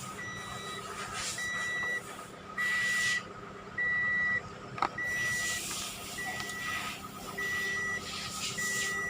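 Car's electronic warning chime beeping steadily at one high tone, about once every 1.2 seconds, eight beeps in all. There is a single sharp click about five seconds in.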